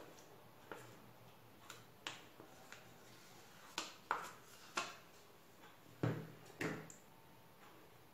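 A metal spoon scooping mascarpone out of its tub and knocking against the tub and a plastic mixing bowl. It gives a scattering of light, separate clicks and knocks, about seven in all, the loudest about halfway through and again about three quarters through.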